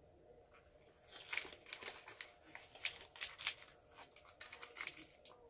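Plastic snack packaging crinkling, with faint, irregular crackles starting about a second in.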